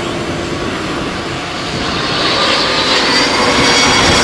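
Garuda Indonesia Airbus A330-900 jet airliner on landing approach, its two turbofan engines making a steady rush. The rush grows louder about two seconds in, as a high engine whine comes through.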